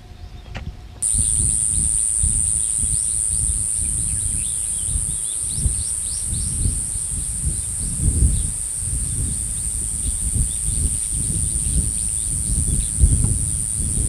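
A steady high-pitched insect drone that starts abruptly about a second in, with many short chirps over it. Uneven low rumble of wind buffeting the microphone runs underneath.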